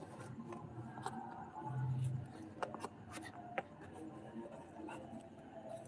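Faint rustling and scattered light clicks, typical of handling noise from the recording phone, with a brief low hum about two seconds in.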